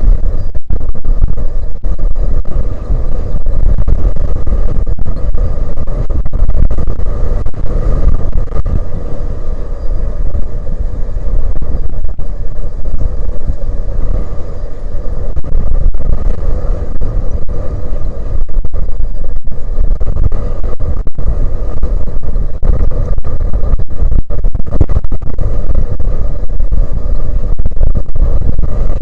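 Strong wind buffeting the microphone: a loud, steady rumble with constant gusting that overloads the recording throughout.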